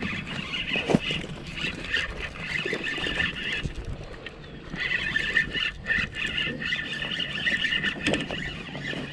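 Spinning reel being cranked, a steady whir that stops for about a second near the middle as the rod is swung, then starts again. Scattered knocks and clicks from handling the rod and reel.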